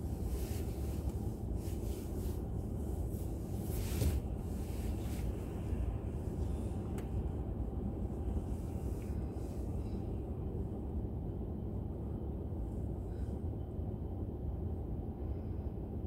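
Steady low road and engine rumble of a moving car picked up by a dashcam, with a brief louder moment about four seconds in.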